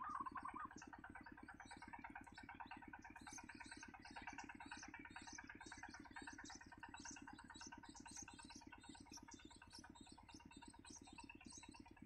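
Faint, thin, high begging calls of yellow-vented bulbul nestlings, repeated rapidly several times a second as the parent feeds them. A brief wavering bird call comes right at the start, over a steady low pulsing hum.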